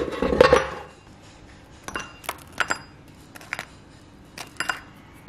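Kitchen clatter as air-fried bungeoppang are moved from an air fryer basket into a ceramic bowl: a noisy scrape in the first second, then a handful of short, sharp clinks and taps.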